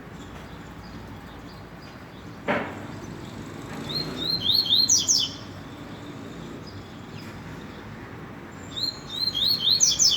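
Double-collared seedeater (coleiro) singing two short phrases of quick, repeated high notes, about four seconds in and again near the end. A single sharp knock comes about two and a half seconds in, over a steady low background rumble.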